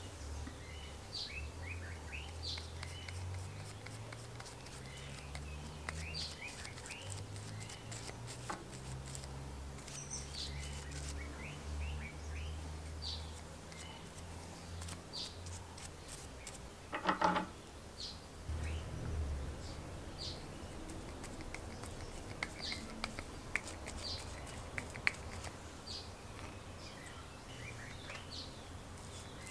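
Birds chirping with many short, repeated calls over a low, uneven rumble, with soft brushing and a few light clicks as grease is worked onto a threaded steel shaft and a gear is fitted. A brief louder sound comes about halfway through.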